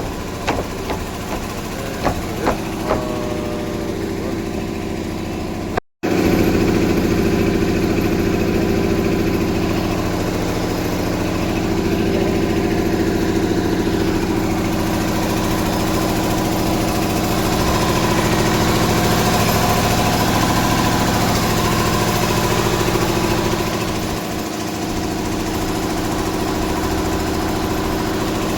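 An engine running steadily, with a few sharp knocks in the first few seconds. After a brief dropout about six seconds in, it runs louder and stays steady.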